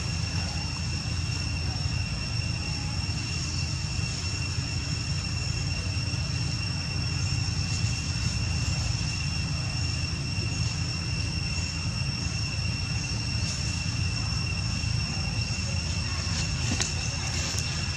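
Steady outdoor ambience: a continuous low rumble under an unbroken high-pitched insect drone.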